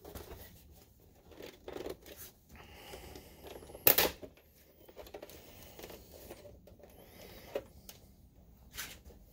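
Plastic housing of an Optoma HD20 projector being handled and pried open at its seam: scraping and rustling of the case, with a sharp snap about four seconds in and a smaller click near the end.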